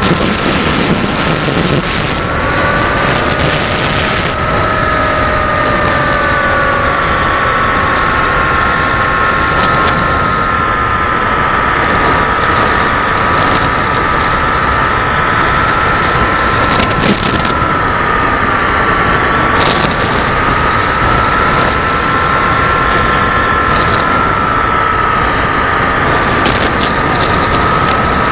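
Electric motors and propellers of an FPV RC model in flight: a steady whine whose pitch sways gently up and down with the throttle, over a rush of wind noise, with a few brief clicks.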